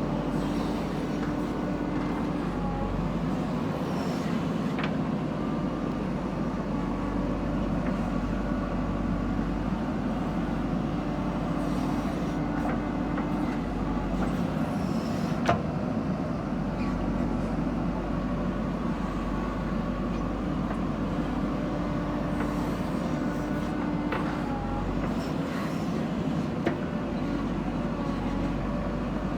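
JCB 3DX backhoe loader's diesel engine running steadily while working, with a sharp knock about halfway through and another near the end.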